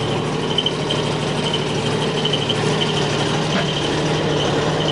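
A boat's generator engine running steadily, a low even hum with a faint high chirp that pulses several times a second.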